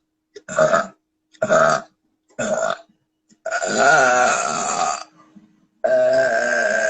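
A woman belching: three short belches about a second apart, then a long drawn-out belch of about a second and a half, and another long belch that starts near the end.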